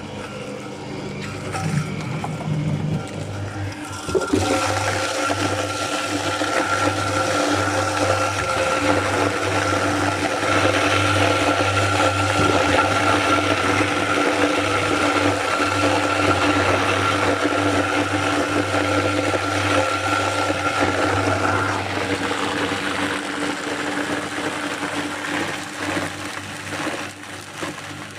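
Motor-driven apple mill running with a steady hum, and a louder grinding noise from about four seconds in as apples are milled into pulp for cider. The grinding eases off about six seconds before the end, while the motor keeps running.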